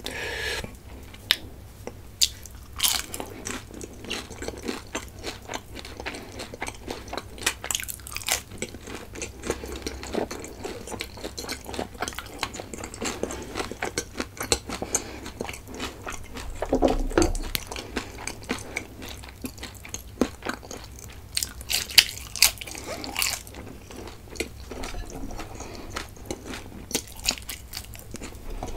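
Jalebi being bitten and chewed close to the microphone: repeated crisp crunches mixed with wet chewing.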